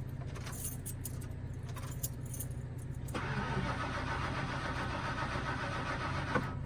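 1997 Fleetwood Storm motorhome's engine cranking steadily on the starter without catching. It turns over but won't start, with no fuel reaching the engine and no fuel pump heard engaging.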